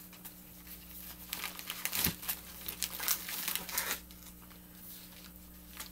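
Plastic bags and packaging crinkling and rustling as items are rummaged through by hand, busiest in a stretch of about two and a half seconds in the middle, over a faint steady low hum.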